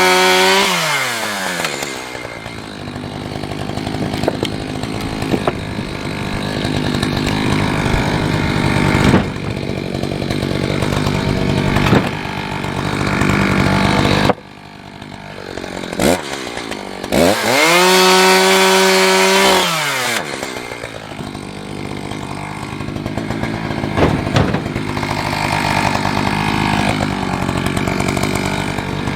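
Two-stroke chainsaw cutting wood under load. About fourteen seconds in it drops back to idle, is blipped a couple of times, then held at full throttle with a steady high whine for a few seconds before winding down and cutting again.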